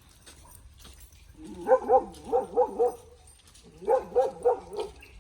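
A dog barking in two quick runs of about five or six barks each, the first starting about a second and a half in and the second near the end.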